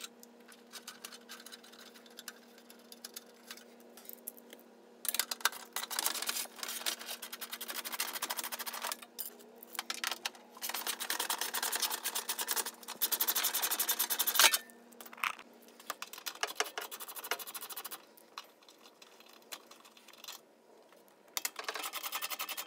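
Hand ratchet on a socket extension clicking in long runs of rapid clicks as bolts are turned out, with shorter bursts of ticking between. A faint steady hum stops about two-thirds of the way through.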